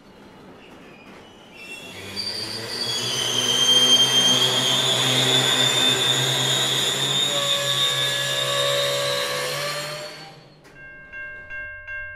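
Freight train hopper wagons rolling past with their wheels squealing in several high, wavering tones over a low steady rumble. The train sound cuts off near the end, and music with an evenly pulsing, chiming beat takes over.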